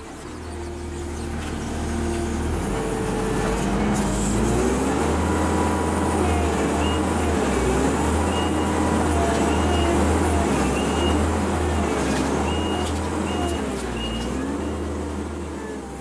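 Kubota compact track loader's diesel engine running under heavy load as the hydraulic tree puller digs into the soil and roots. Its pitch repeatedly sags and recovers as the load comes and goes.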